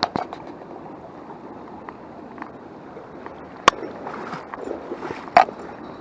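Small stream running steadily, with three sharp knocks cutting through: one right at the start, one near four seconds and one over five seconds in.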